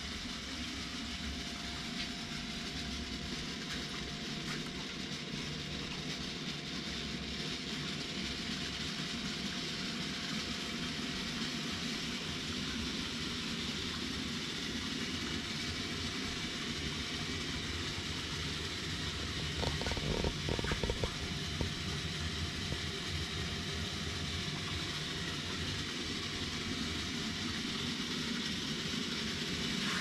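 Steady hum and hiss of a running reflux still and its circulating cooling water, with a faint steady whine, and a short rattle of knocks about two-thirds of the way through.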